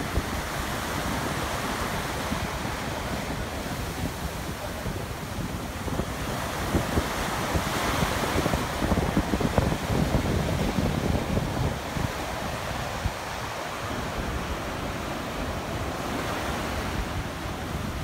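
Atlantic surf breaking and washing up the sand, a continuous rush that grows louder for a few seconds near the middle, with wind buffeting the microphone.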